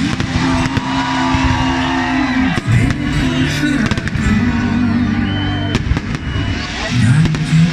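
Fireworks bursting in scattered bangs over loud festive music.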